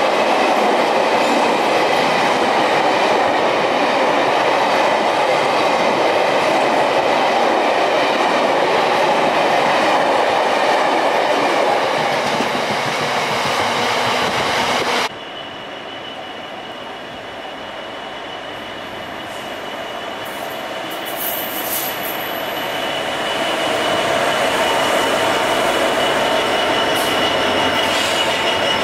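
Loaded freight wagons rolling fast past the platform, a loud dense rumble of wheels on rail that cuts off abruptly about halfway. After the cut a second freight train, led by a Freightliner Class 66 diesel locomotive, approaches and grows louder, with a thin steady high squeal over the wheel noise.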